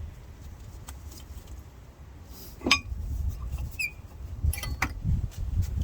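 A few sharp metallic clinks and taps from brake parts and hand tools being handled, the loudest a little under three seconds in with a brief ring, over a steady low rumble.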